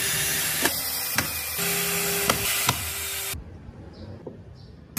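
Cordless drill running as it drives screws into the wooden model truck's chassis, its motor whining with a few sharp clicks. It stops suddenly about three and a half seconds in, leaving only faint handling sounds.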